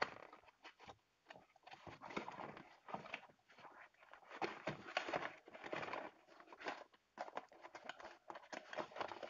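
Cardboard box being opened and handled by hand: irregular crackling, scraping and light tapping of the cardboard as the boxed speakers are slid out.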